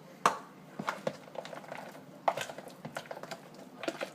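Irregular clinks and taps of a utensil against a bowl as blueberries are added to and worked into oat protein pancake batter.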